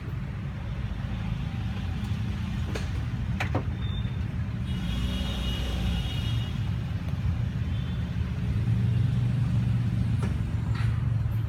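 Street traffic: a steady low rumble of vehicle engines that grows louder about eight seconds in, with a few faint clicks.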